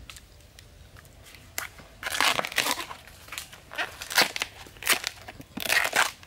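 The outer sheaths of a fresh bamboo shoot being peeled and torn off by hand, in several short bursts of tearing that start about two seconds in.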